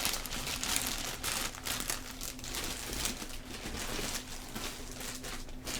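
A cardboard package and its packing being torn open and crumpled by hand: irregular crinkling and tearing that goes on throughout.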